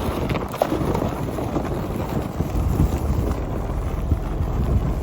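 Wind buffeting the microphone over the steady low rumble of a vehicle driving across a field.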